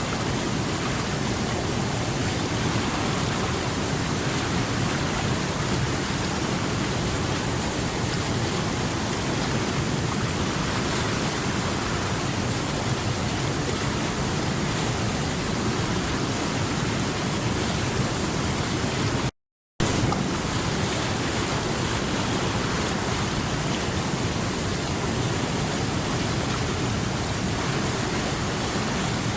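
Water flowing steadily over rocks, a continuous even rush. About two-thirds of the way through, it cuts out completely for about half a second and then resumes.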